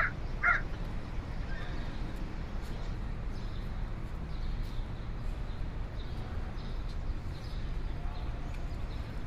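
A crow caws twice in quick succession at the start, over a steady low outdoor rumble.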